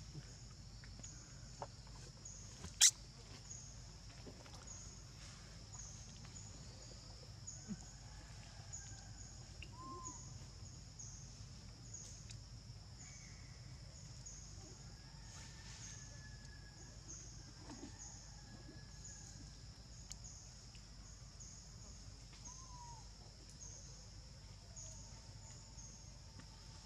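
Outdoor ambience of a steady, high-pitched insect chorus pulsing about once a second, with a few faint chirps. One sharp click about three seconds in.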